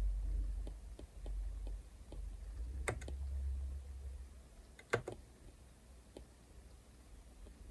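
Stylus tip tapping and clicking on a tablet's glass screen during short drawing strokes: a scatter of faint ticks, with two sharper clicks about three and five seconds in, over a low steady rumble.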